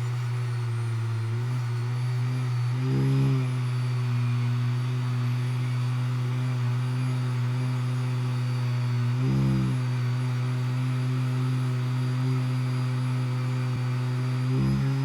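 Electric air pump running with a steady low hum, with short surges of rumble about three seconds in, again past the middle and near the end.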